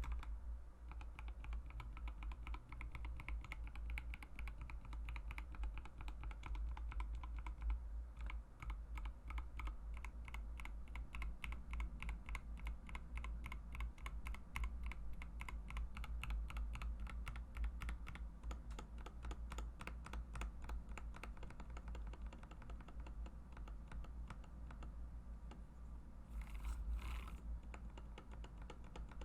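Mechanical keyboard with Mauve linear switches being typed on quickly and continuously, a dense run of key presses. Near the end come two short hissing noises.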